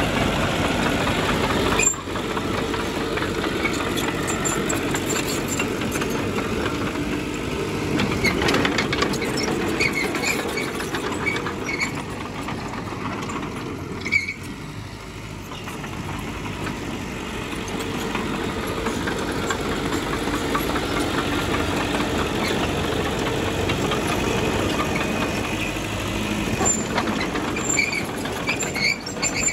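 Diesel earthmoving machinery working: a steady engine note that drops briefly about two seconds in and again around the middle, where there is a sharp click. A few short high squeaks come through, around a third of the way in and near the end.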